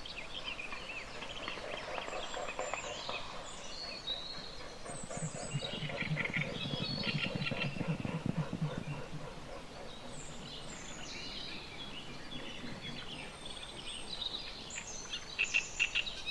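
Small songbirds chirping and singing, with short whistled phrases and quick chirps scattered throughout. A lower pulsing sound rises for a few seconds in the middle.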